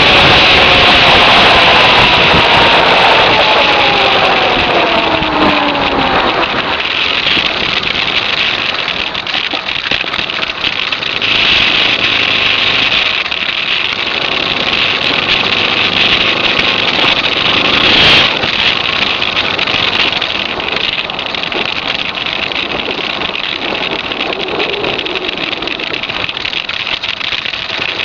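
Suzuki DR650 single-cylinder engine running under heavy wind rush on the microphone, its revs falling steadily over the first several seconds as the throttle is rolled off. It then carries on at lower, varying revs, with the wind noise steady throughout.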